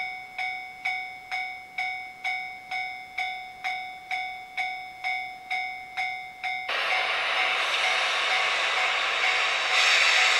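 Japanese railway level-crossing alarm ringing, a repeated ding about twice a second, stopping about two-thirds of the way in. Then the steady rushing hiss of an EF64 electric locomotive's blowers takes over and grows louder near the end.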